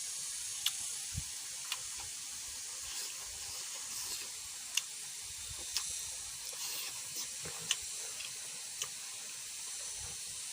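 Eating sounds: a steady faint hiss with scattered short, sharp mouth clicks and chewing noises, about one every second or two.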